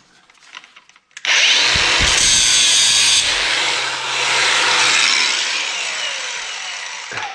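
Handheld power tool cutting into scrap brass, starting suddenly about a second in and running loudly for several seconds, easing off near the end.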